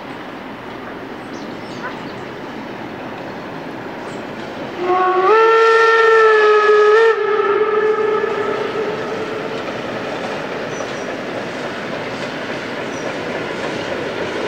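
Steam locomotive blowing its steam whistle once for about two seconds: a chord of several tones that slides up at the start, holds steady and leaves a short echo. Under it the train runs across a steel truss bridge, its running noise growing louder as it approaches.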